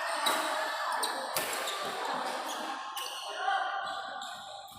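Badminton rally: racket strings striking the shuttlecock about every one to one and a half seconds, with spectators' voices in the hall.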